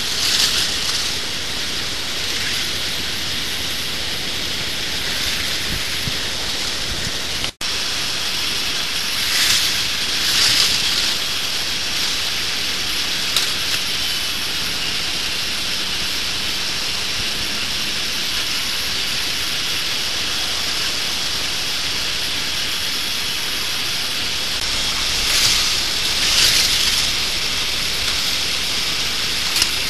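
K'NEX model roller coaster running, its train clattering along the plastic track in a steady hissing rattle. Louder rushes come in pairs about a second apart, about ten seconds in and again near the end, as the train passes close.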